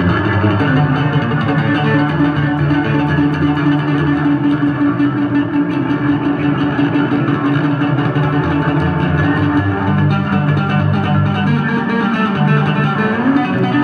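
Unaccompanied Yamaha electric bass solo played live through an amplified rig: fast, dense notes high on the neck, with one high pitch repeated or held through much of the passage and a note sliding upward near the end.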